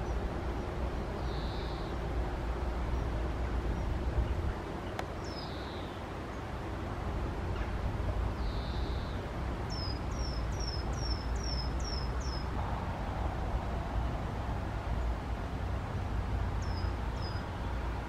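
Treecreeper calling: high, thin downslurred notes, with a quick run of about seven near the middle and two more near the end, over a steady low background rumble.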